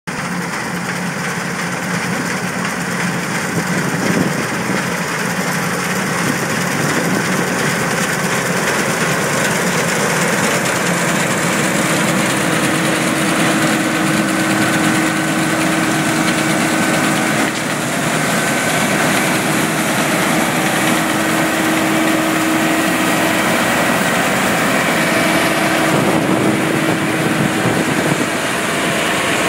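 New Holland TF46 combine harvester running while cutting barley: a steady engine and machinery drone with a constant whine, growing a little louder as the machine comes close.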